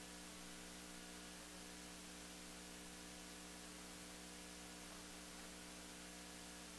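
Near silence: a steady electrical hum with hiss, unchanging throughout.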